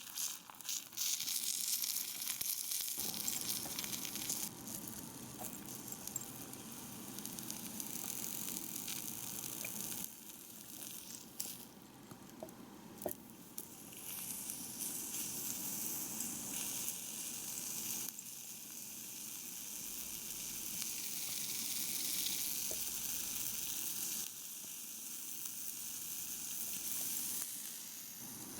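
Food sizzling in a miniature frying pan, a steady hiss with a few faint light clicks. It shifts in level every few seconds.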